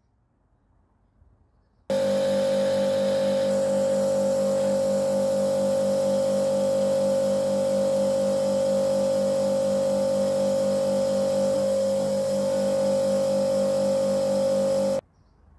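Kärcher electric pressure washer running and spraying, a steady, unchanging whine with a lower hum underneath. It starts abruptly about two seconds in, after near silence, and drops out briefly near the end.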